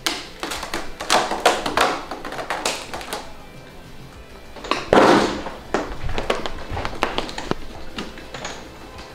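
Background music over the clicks and taps of a TV's LCD panel being pried loose from its frame, with a louder scraping rustle about five seconds in as the panel comes away.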